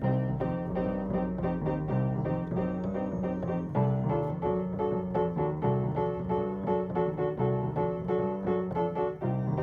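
Background music led by piano or keyboard, with a steady run of notes over a bass line.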